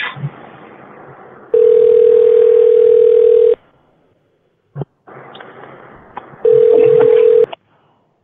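Telephone ringback tone heard down a phone line: one steady two-second ring, a pause, then a second ring cut short after about a second. Line hiss sits under and between the rings.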